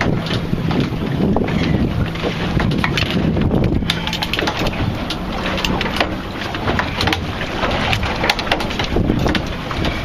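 A boat's motor running steadily at idle, with wind buffeting the microphone. In the second half there are many light clicks and knocks.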